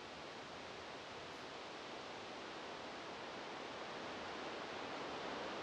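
Steady, even hiss of room tone with no distinct events, growing slightly louder toward the end.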